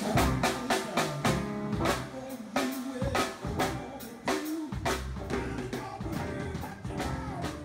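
Band music with a drum-kit beat of repeated sharp drum hits over sustained bass and pitched notes.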